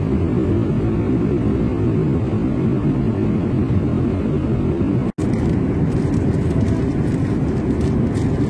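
Jet airliner cabin noise: a steady low roar, broken once by a brief dropout about five seconds in.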